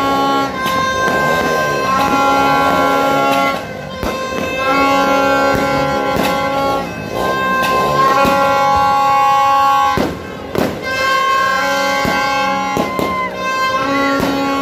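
Music with long held notes and chords, steady and loud throughout. A few sharp cracks cut through, clearest around ten seconds in.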